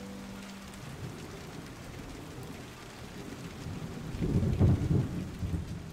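Steady rain with a low rumble of thunder that swells to its loudest about four to five seconds in.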